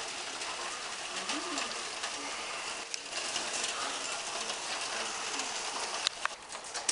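Heavy rain and hail falling steadily, a constant hiss with scattered sharp ticks of hailstones striking. One brief low cooing note sounds about a second and a half in.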